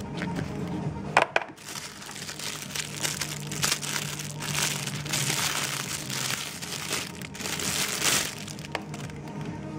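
Clear plastic packaging bags crinkling as the tablet's wrapped charger and cable are handled, in uneven bursts from about three seconds in, with a single sharp crackle about a second in.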